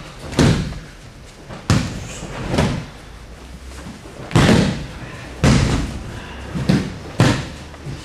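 Aikido breakfalls: people thrown down onto tatami mats, landing with about seven sharp thuds at irregular intervals, a second or so apart.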